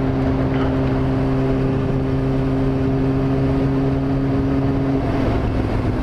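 Yamaha YZF-R6's inline-four engine running at a steady cruise under wind and wet-road noise; the engine note drops to a lower pitch about five seconds in.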